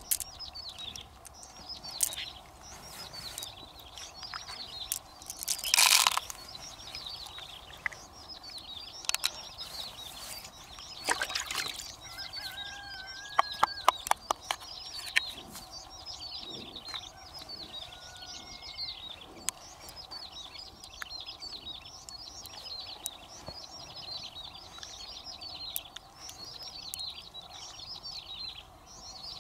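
Small birds chirping over and over, quick high calls that drop in pitch. A short loud rustle comes about six seconds in, and a quick run of sharp clicks from handling follows around halfway through.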